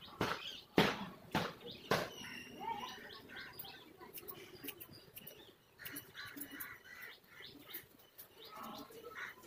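Hair being combed and cut by hand: several sharp snips and strokes in the first two seconds. Faint chirping follows later.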